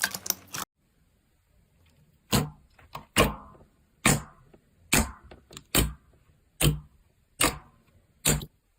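Slime being handled: a crunchy crackle that cuts off abruptly under a second in. After a short pause come eight sharp clicking pops at an even pace, a little under one a second.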